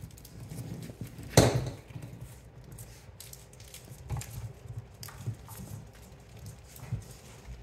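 Australian Shepherd puppies scuffling and tugging over a plush toy on a wooden floor, with scattered clicks and taps. One sharp knock about a second and a half in is the loudest sound.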